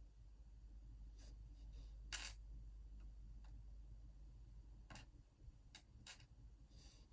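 Scattered small, sharp metal clicks and taps, about six in all, the loudest about two seconds in: the driver pins of a gutted Assa Twin 6000 lock being worked out of the housing.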